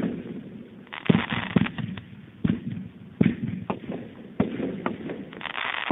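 Atomic Fireworks "Engine No. 9" 16-shot fireworks cake firing its last shots: sharp reports come about a second apart. Near the end they give way to a dense spray of fast crackling from crackle stars.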